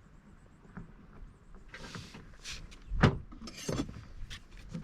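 Rustling, clicks and a sharp knock from a car door trim panel being handled and fitted back against the door, with its screws in place. The single loud knock comes about three seconds in, followed by a short run of clicks and rattles.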